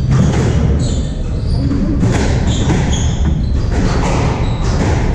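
Squash ball struck by racquets and smacking off the walls and floor in an irregular run of sharp hits, with short high squeaks of sneakers on the hardwood court floor. The hits echo in the enclosed court.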